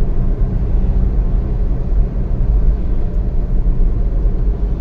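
Vehicle running with a steady low rumble.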